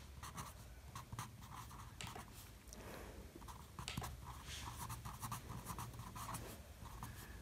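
Marker pen writing on paper: faint scratching strokes in short runs over a low steady hum.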